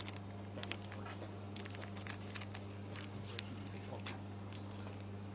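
Foil trading-card pack being cut open and handled: soft crinkling and small irregular clicks and crackles, over a steady low hum.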